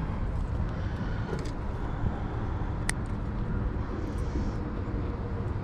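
Steady low outdoor rumble with faint handling ticks and one sharp click about three seconds in.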